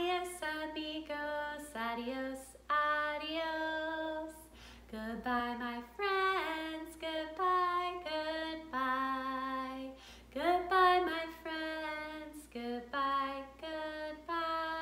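A woman singing a slow goodbye song alone, without accompaniment, in short phrases with long held notes.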